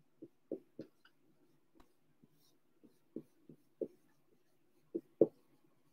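Dry-erase marker writing on a whiteboard: a run of about a dozen short, separate strokes, the loudest two near the end.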